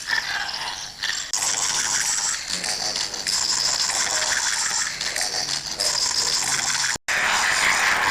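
A dense, steady mechanical rattling, like a ratchet, that cuts off abruptly about seven seconds in. A different steady noise follows straight after.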